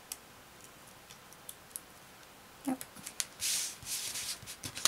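Faint small ticks and clicks of fingers working with paper craft pieces. From about three seconds in come spells of paper and cardstock rustling as the cut-out, with its backing paper, is handled and pressed down onto the card.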